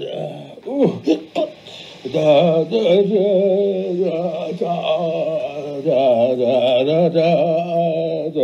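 A man singing slow, held notes with a wide vibrato, after a short broken stretch near the start.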